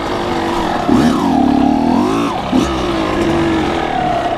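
Kawasaki KX100's two-stroke single-cylinder engine revving up and down at low speed on the throttle. Its pitch rises about a second in and falls back a little after two seconds, then settles to a steadier note.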